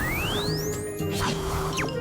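Cartoon background music with a steady bass line and sustained notes, with a whistle-like rising sweep at the start and a short falling swoop near the end.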